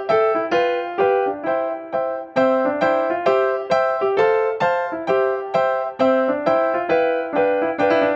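Background music: a keyboard tune of evenly spaced struck notes, each fading, about two to three notes a second.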